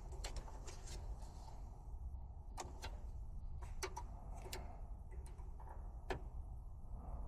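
Scattered light clicks and taps, about ten spread unevenly over several seconds, from handling tools and equipment during HVAC service work, over a low steady hum.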